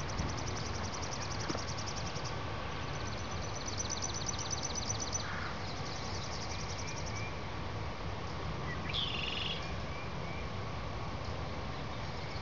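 Songbirds singing outdoors: high, rapid trills of evenly repeated notes come several times, with a short falling call about nine seconds in, over a steady low background rumble.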